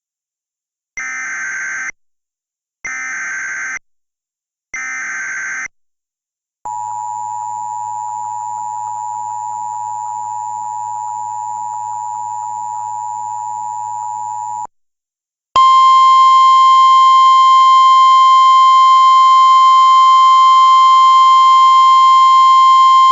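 Mock Emergency Alert System alert tones. First come three short bursts of warbling SAME header data tones, then the steady two-tone EAS attention signal held about eight seconds. After a brief gap, a single steady NOAA Weather Radio warning tone, louder, sounds for about eight seconds and cuts off near the end; together they herald a severe thunderstorm warning.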